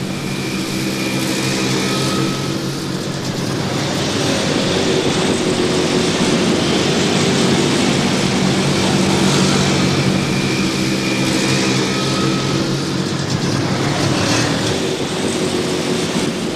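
Motorcycle engines running at a steady speed, a continuous drone with no rise or fall in pitch.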